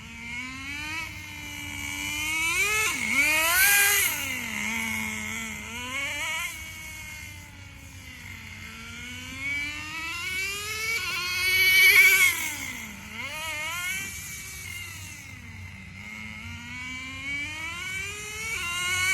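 Small .15 nitro engine of a Traxxas 4-Tec RC car running, revving up and down again and again as the car accelerates and slows, loudest twice as it comes near. The owner says the engine could use some tuning.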